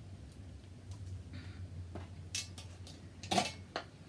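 Snow crab leg shells cracking and snapping as they are picked apart by hand at the knuckle joints: a scatter of sharp cracks and clicks, the loudest about three seconds in, over a low steady hum.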